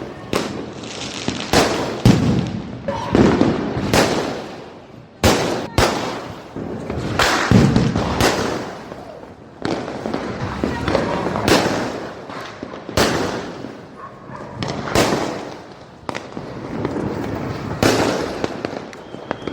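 Firecrackers going off one after another: more than a dozen sharp bangs at uneven gaps of a second or two, each trailing off in a rumbling echo.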